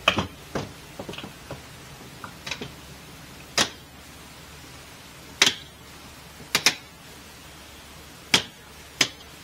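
Sharp clicks and knocks, about eight of them spaced a second or two apart, as a hand presses around the frame of an RV entry-door window kit and seats its click-together frame. A steady hiss runs underneath.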